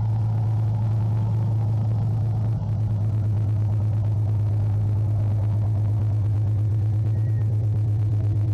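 A steady low drone with a constant rumble beneath it, unchanging in level throughout.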